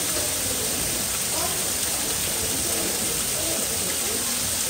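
Indistinct chatter of a crowd of visitors over a steady rushing hiss, with no single voice standing out.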